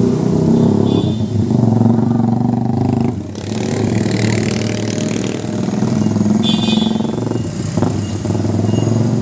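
Car and motorcycle engines as road traffic drives slowly past at close range, one vehicle after another, with a brief lull about three seconds in.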